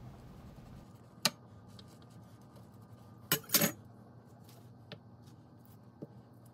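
A few sharp knocks and clicks of a chef's knife against a wooden cutting board and counter while raw chicken drumsticks are scored and handled. The loudest is a close pair a little past halfway.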